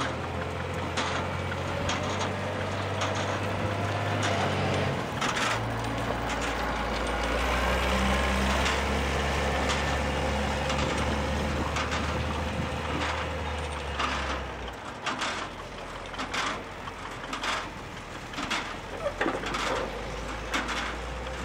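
Volvo L120 wheel loader's diesel engine running under work, its revs stepping up and down a couple of times, with repeated sharp knocks.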